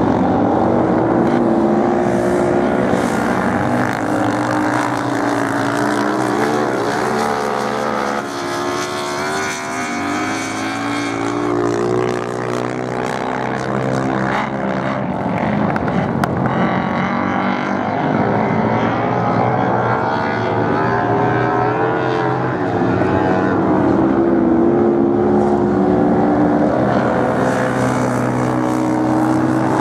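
Several racing motorcycle engines revving as the bikes ride round the sand course, their pitch rising and falling again and again as they accelerate and slow for the corners.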